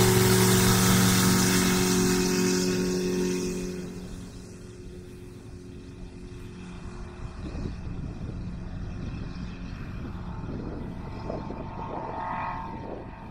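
Light aircraft's turbocharged Rotax 912 engine and propeller running as the plane rolls past on its takeoff run, loud at first, then fading over the first few seconds as it moves away and lifts off, leaving a faint distant drone.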